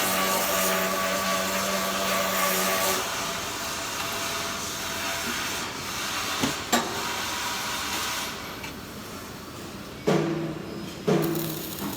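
Steady hissing crackle of a flux-cored arc welding arc on stainless steel, over a machine hum; it dies away about three-quarters of the way through. Near the end a vehicle's reversing beeper sounds, about one beep a second.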